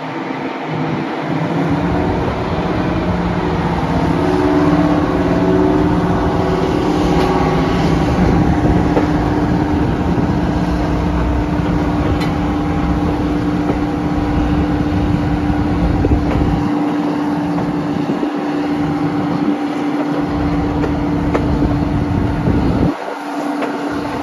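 Class 55 Deltic diesel locomotive's twin Napier Deltic two-stroke engines working hard to haul the train away, heard from an open coach window, growing louder over the first few seconds. Wind buffets the microphone under the engine note, dropping away briefly near the end.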